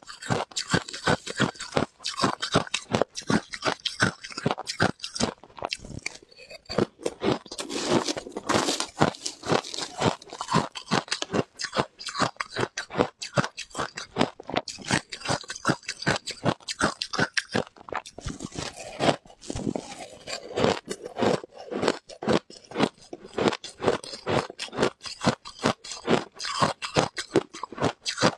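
A person crunching and chewing ice in their mouth, in rapid sharp crunches several times a second, with no pause.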